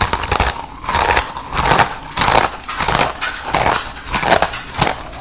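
Close, loud crunching of two Takis rolled corn tortilla chips being chewed, a steady run of crisp crunches.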